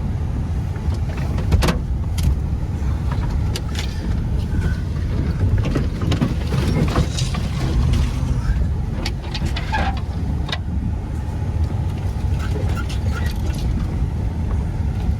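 Pickup truck driving slowly along a rough, unmaintained woodland track: a steady low rumble of engine and tyres, with scattered knocks and clicks from the jolting over the rough ground.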